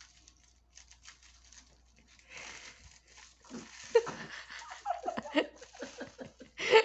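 Chewing a mouthful of about ten crammed-in biscuits: faint crunching at first, then denser crackly crunching, with short muffled voice sounds through the full mouth in the middle.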